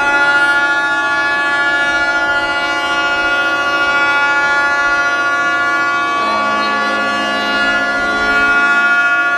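Several superyacht horns blowing together in one long, steady chord, sounded as a farewell salute; a lower horn joins about six seconds in and stops near nine seconds.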